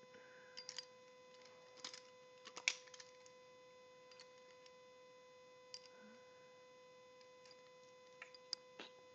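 Butterfly knife (balisong) being handled: scattered sharp metallic clicks of the handles and blade knocking together, in small clusters. The loudest click comes about two and a half seconds in, with another group near the end.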